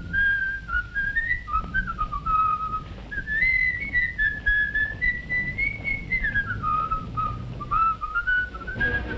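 A person whistling a tune, the melody moving up and down in single clear notes.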